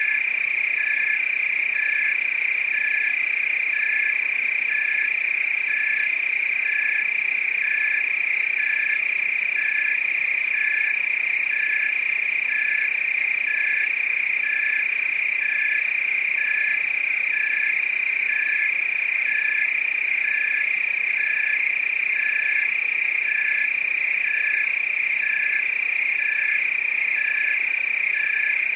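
Night chorus of frogs and crickets calling: a steady high trill with a shorter call repeating about once a second beneath it.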